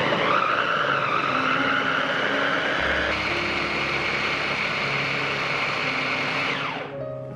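Electric mini food chopper running loudly as it grinds shallots, garlic and chilies with water into a paste. Its whine shifts higher about three seconds in, and the motor winds down with a falling pitch shortly before the end.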